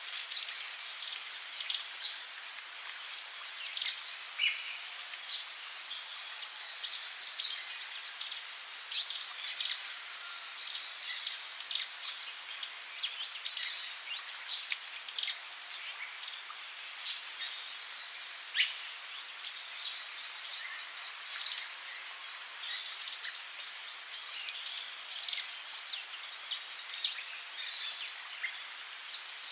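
Rainforest ambience: a steady high-pitched insect drone with many short bird chirps and calls scattered throughout.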